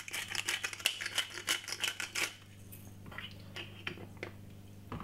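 Pepper grinder being twisted, giving a fast run of dry clicks for a little over two seconds, then a few slower, scattered clicks.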